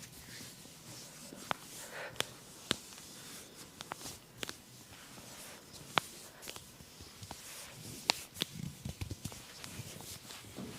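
Massage handling sounds: soft rubbing on skin, broken by scattered sharp clicks and pops, with a few duller low thumps near the end.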